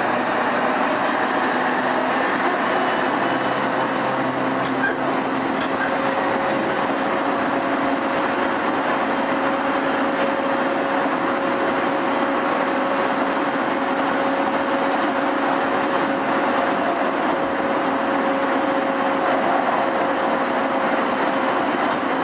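E231 series electric train standing at the platform, its on-board equipment giving a steady hum with a faint constant tone.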